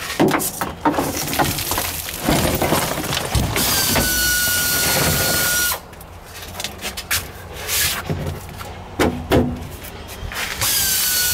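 Knocking and rustling as the ribbed rubber trunk mat of a Mercedes W115 is pulled up and handled. In the middle a power tool runs with a steady whine for about two seconds, and it starts again near the end.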